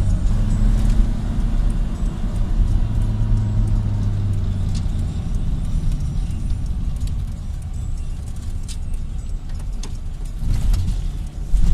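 Car engine and road noise heard from inside the cabin while driving: a steady low hum that eases off about halfway through, with a few faint ticks and rattles.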